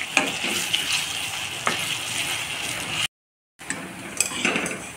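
Palm-fruit dough balls deep-frying in refined oil in an iron kadai: a steady sizzle with a few sharp knocks of a utensil against the pan. It cuts out abruptly about three seconds in, then comes back as a quieter sizzle with a couple of clinks.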